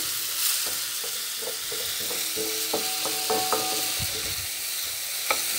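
Sliced mushrooms sizzling in hot oil in a frying pan, stirred with a wooden spatula that scrapes and knocks lightly against the pan.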